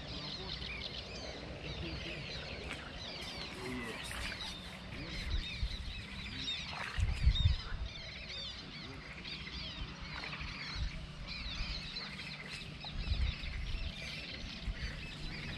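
Many small birds singing at once, a dense chorus of short high chirps and trills. A few low rumbles hit the microphone, the loudest about seven seconds in and another about thirteen seconds in.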